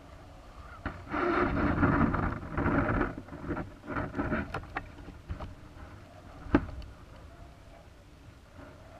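Rough rustling and buffeting noise picked up by the balloon payload's onboard camera microphone for a few seconds, then scattered sharp clicks and one louder knock about six and a half seconds in, as the payload swings.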